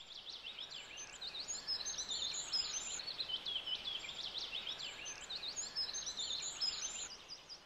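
Birds chirping and twittering: many quick, overlapping high chirps over a faint hiss, fading near the end.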